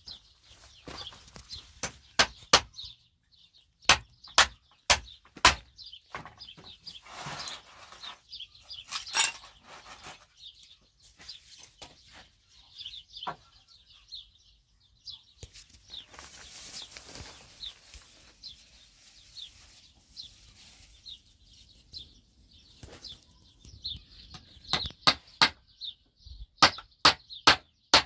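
Claw hammer striking old wooden planks and their nails in sharp single blows, scattered at first, then a quick run of strikes near the end. Birds chirp faintly in the background.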